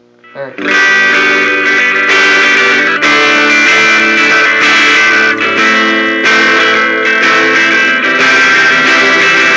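Electric guitar strummed through a Behringer V-Tone GM108 15-watt amp on a flat, clean setting that sounds sort of like an acoustic guitar. Loud ringing chords start under a second in and change about once a second.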